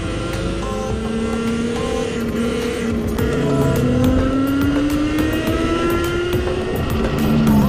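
Volcon Grunt electric motorcycle's motor whine rising smoothly in pitch as the bike speeds up, over steady wind and road noise.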